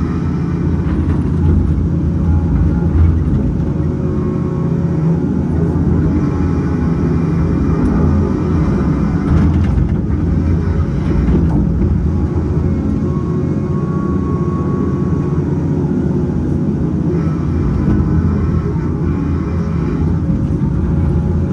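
Cat 568 log loader's diesel engine running steadily under hydraulic load while the grapple swings and stacks pulp logs onto a log truck, with a few faint knocks of wood partway through.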